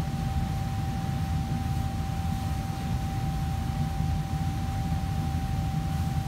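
Steady machine hum of commercial kitchen fans, a low rumble with one constant whine held throughout.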